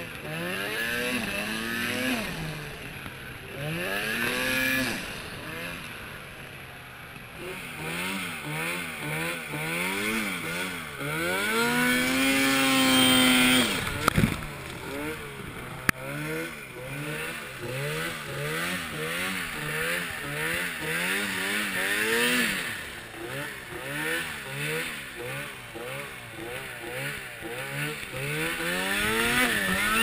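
Arctic Cat Turbo snowmobile engine revving up and down over and over as the throttle is worked, with one long climb in pitch that drops away sharply about halfway through. A few sharp knocks stand out as the sled moves through the snow.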